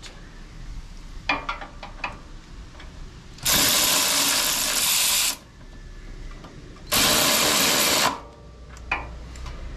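Handheld power tool running in two bursts, the first about two seconds long and the second about one, as the lower mounting bolt of a new rear shock is run in. A few light metallic clicks come before the first burst.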